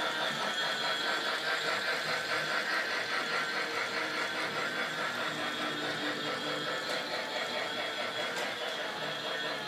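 Toy train running along its track: a steady small-motor whir with a fast, even rattle.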